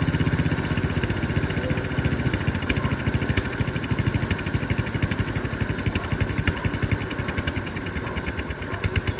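Cub Cadet 104 garden tractor's single-cylinder engine running with a rapid, even firing pulse while the tractor is driven on its welded rear differential, the level dipping slightly near the end.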